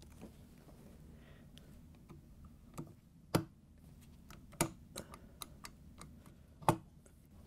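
Scattered clicks and knocks as a stand mixer's metal planetary is turned and pushed up onto its shaft so its gears mesh; about six separate clicks, the loudest about three and a half seconds in and near the end.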